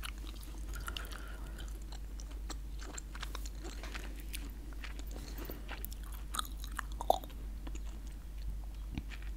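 Chewing gum close to the microphone: wet mouth clicks and smacks scattered at an uneven pace, with one sharper click about seven seconds in.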